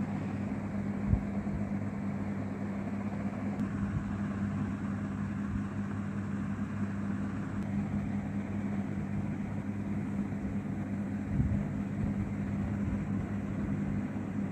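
A steady low hum over a faint even background noise, with a soft knock about a second in and another about two-thirds of the way through.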